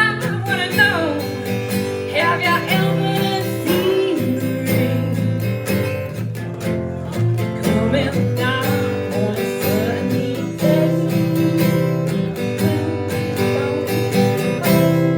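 Music: strummed acoustic guitar chords with a melodic lead line bending and sliding over them.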